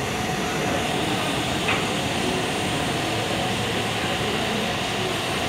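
Steady background noise, an even hum and hiss, with one brief tick about a second and a half in.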